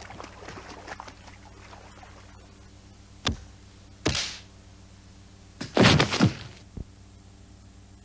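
Foley water splashes tailing off, then, after a pause, a sharp thud, a short splashing hit and a loud cluster of heavy impacts about six seconds in, with a small knock after it: effects for a stormy ship scene.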